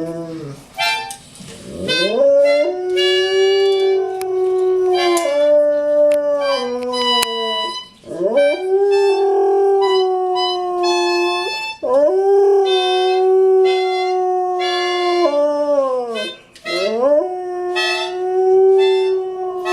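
A dog howling along to music in a run of long held notes, each several seconds long, sliding down in pitch at its end before the next one starts.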